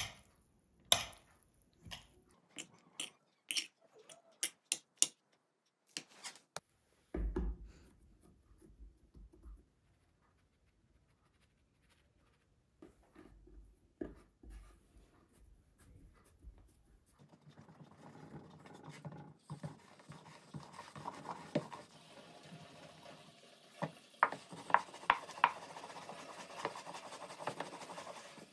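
Kitchen food-preparation sounds: a run of sharp taps and knocks from utensils, a dull thump about seven seconds in, then after a quiet stretch a steady soft scraping and rubbing with a few more taps near the end.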